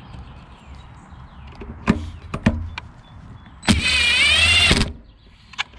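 A few light clicks of tools on the Tecumseh lawnmower engine, then a mechanical whir with a wavering pitch for about a second, from the magneto install.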